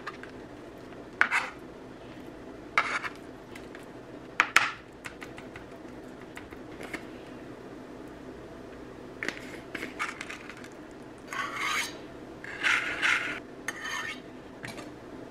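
Santoku knife working raw chicken on a plastic cutting board: a few sharp chops and blade scrapes, then longer scraping near the end as the minced chicken is pushed off the board into a bowl.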